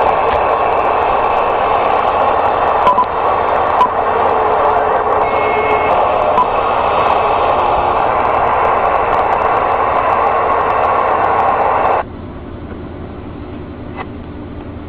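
Cobra 29 LX LE CB radio's speaker putting out steady static with the squelch open, a loud hiss with a couple of faint clicks. About twelve seconds in it drops abruptly to a much quieter hiss.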